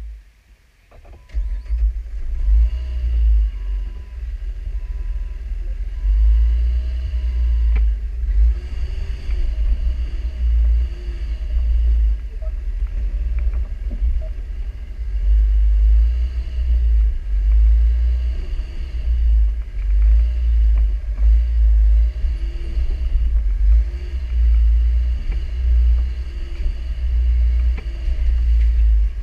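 Jeep Wrangler crawling slowly over creek-bed rocks: a deep, steady rumble from the engine and drivetrain carried through the hood into the mounted camera, with scattered knocks from the tires and suspension on the rocks. An electronic beep repeats evenly for the first several seconds.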